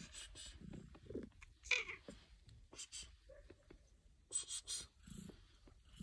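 A cat sniffing close to the microphone: groups of short, quick sniffs, three in a row about four and a half seconds in, with a few soft, short low sounds from the cat in the first two seconds.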